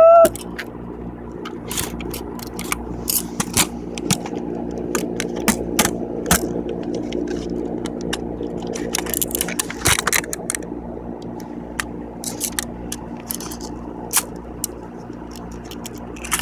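Scattered clicks, taps and scrapes of small metal and plastic parts being handled while a floppy disk drive is taken apart by hand, over a steady background hum.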